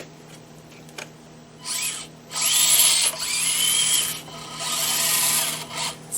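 The small electric motor and gear drivetrain of an Axial SCX24 micro crawler whining in three throttle bursts, a short one and then two longer ones, the whine rising in pitch as it speeds up and then holding steady.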